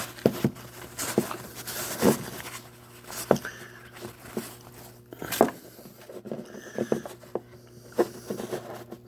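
Packaging wrap being pulled open by hand: irregular crinkling and rustling with sharp crackles and clicks, a few louder than the rest.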